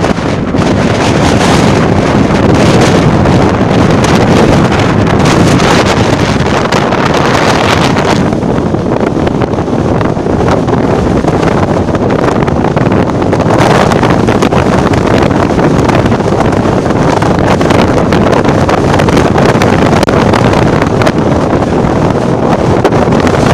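Strong wind buffeting the microphone: a loud, steady rush that swells and eases in gusts.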